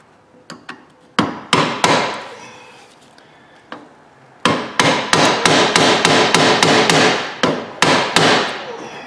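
Metal-on-metal hammer taps on a pick set against a tight wheel-bearing snap ring, working it loose. First a few separate ringing strikes, then a fast run of taps, about four or five a second, from about four and a half seconds in until near the end.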